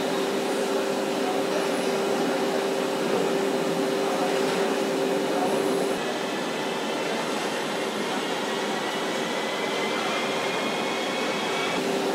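Steady factory machinery and air noise with a constant hum that drops out about halfway through, and a faint rising whine in the second half.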